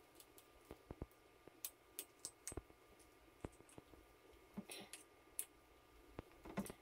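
Faint, scattered small clicks and taps of a metal adapter piece being worked onto the square stem of a brass ball valve.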